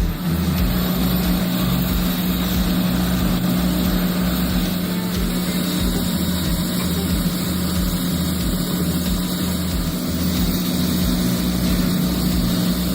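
Heavy diesel machinery running steadily: a constant low engine rumble with a steady hum over it.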